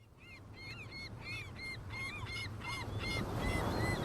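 Seagulls calling over and over in a quick series, about three calls a second, with the hiss of surf on a pebble beach swelling up beneath them.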